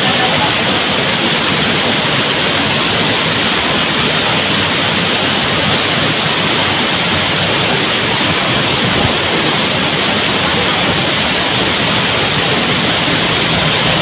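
Waterfall pouring into a plunge pool: a loud, steady rush of falling and splashing water.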